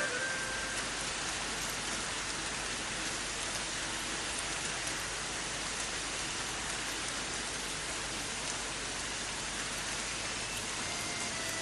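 Steady rain falling: an even, dense hiss of rain on hard ground.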